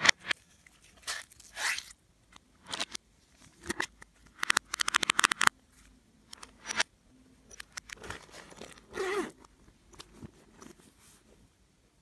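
Slime with clay and glitter mixed in being kneaded and pressed by hand, giving irregular crunchy crackles. In the middle comes a burst of rapid clicking pops as trapped air is squeezed out.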